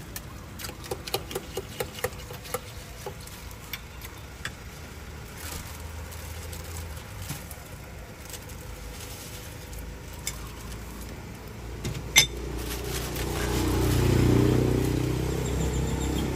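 Light clicks and knocks of glass mugs and a plastic bag being handled while a drink is bagged, with one sharp knock, then a motor vehicle passes close by, its engine swelling and fading over about three seconds near the end.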